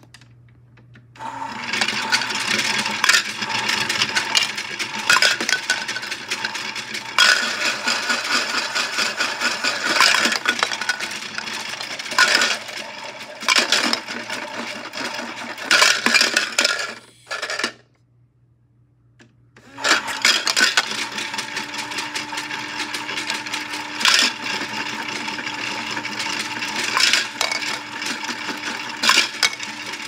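Washmatic toy washing machine running: its small electric motor hums as the drum turns, with a dense clatter of clicks as a cookie tumbles inside. It starts about a second in, stops for about two seconds a little past halfway, then starts again.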